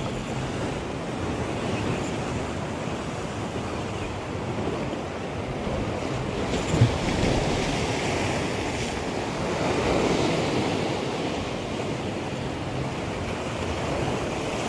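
Sea waves washing onto the shore, with wind on the microphone; the wash swells a couple of times, and there is one brief knock about seven seconds in.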